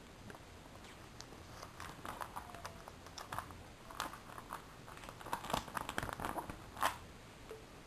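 Plastic trading-card binder sleeves crinkling and clicking as the pages are handled: an irregular run of small crackles, the loudest one near the end.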